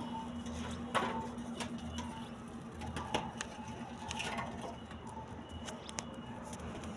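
Rabbits chewing chopped cabbage leaves: scattered sharp crunches and rustles, over a steady low hum.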